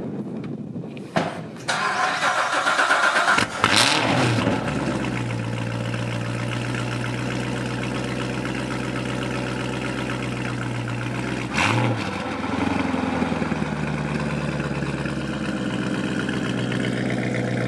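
Cold start of a C7 Corvette's 6.2-litre V8. The starter cranks for about two seconds, the engine catches with a loud flare of revs, then settles into a steady idle, with a brief rise in revs about twelve seconds in.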